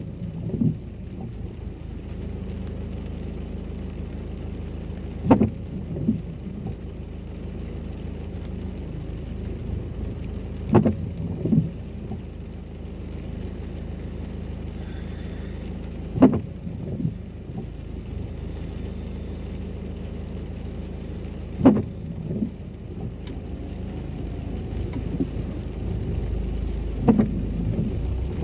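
Intermittent windscreen wipers making a sweep about every five seconds, each sweep a pair of knocks about half a second apart, heard from inside the car over the steady low hum of the stationary car in the rain. The hum grows a little louder near the end.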